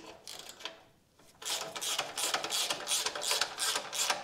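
Ratchet wrench clicking rapidly as it tightens a nut on a car's stock exhaust. The clicking starts about a second and a half in.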